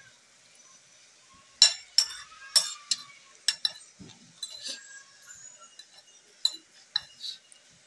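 Metal spoon and fork clinking and scraping against a plate while eating, about ten sharp, irregularly spaced clinks.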